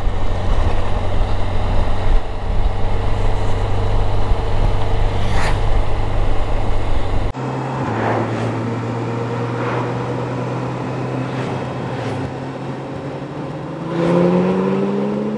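Motorcycle engine hum under wind rush, heard from on board at road speed. About seven seconds in the sound switches abruptly to a Honda Gold Wing's onboard audio, with a different, steadier engine hum, and the engine note climbs near the end.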